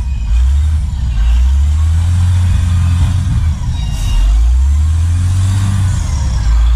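Truck engine running with a loud, low rumble that swells and eases a little.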